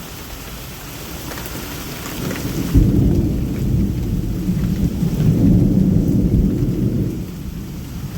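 Steady rain falling, with a long, low rumble of thunder breaking in about three seconds in, swelling a second time and dying away near the end.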